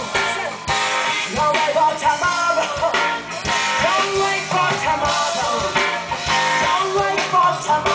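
Rock band playing live: a singer's voice over electric guitar, bass and drums with a steady beat.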